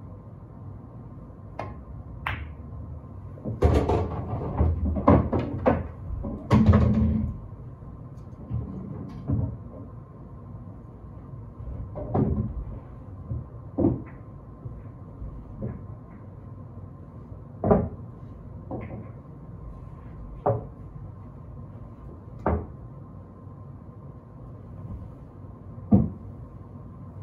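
Pool balls knocking and clacking: a cue tip strikes the ball, then a quick run of loud clattering knocks between about 4 and 7 seconds in. After that, single sharp knocks come every couple of seconds as balls are handled and set on the table.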